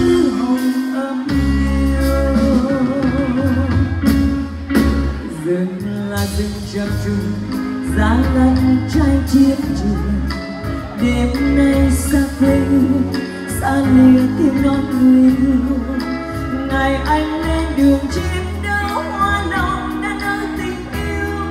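Live band playing a slow ballad, with a sung melody carried over sustained bass and light percussion.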